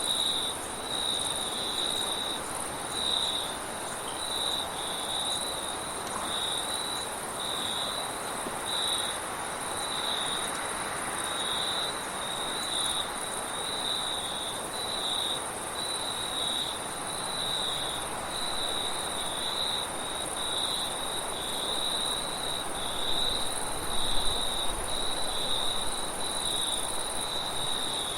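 Crickets chirping in a steady pulsing rhythm over a continuous higher insect trill, with wind rushing underneath, a little stronger near the end.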